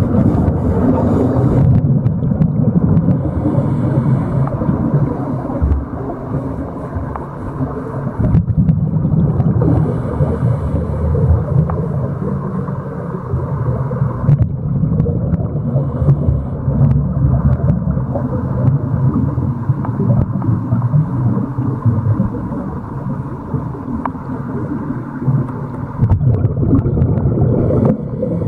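Steady low underwater rumble picked up by a submerged camera, with small swells and a few faint clicks.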